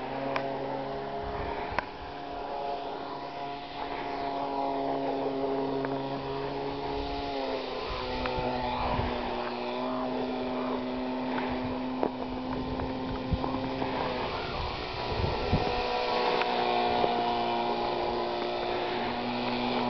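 Electric motor and propeller of a foam radio-control model plane running in flight: a steady buzzing drone whose pitch drops about seven seconds in and shifts again near fourteen seconds.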